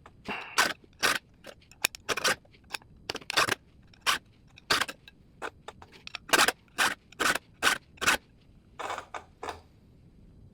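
Hand file rasping across the cutting teeth of a small cordless chainsaw's chain, one short stroke after another at an uneven pace, with softer strokes near the end: the dull chain being sharpened.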